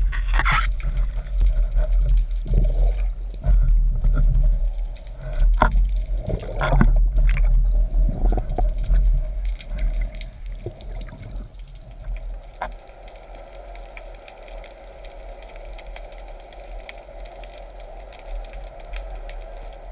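Underwater sound picked up through a diving camera's housing: a heavy, uneven low rumble of water and the diver's movement, broken by sharp clicks and knocks from the speargun, shaft and line being handled. From about twelve seconds in it settles into a quieter, steadier hum.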